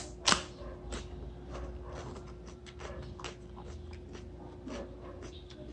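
Crunching bites and chewing of raw bitter melon (ampalaya) close to the microphone: one sharp, loud crunch about a third of a second in as a piece is bitten off, then irregular crisp crunches of chewing.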